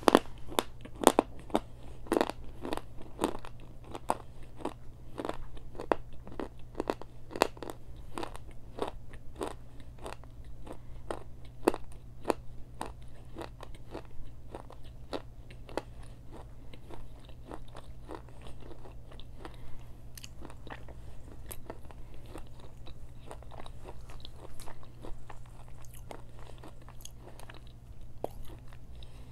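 Close-miked crunching and chewing of a small Mexican clay pot treat, a baked clay cup filled with white powder. The crunches are sharp and come thick and loud for the first dozen seconds, then thin out to softer, sparser chewing, over a steady low hum.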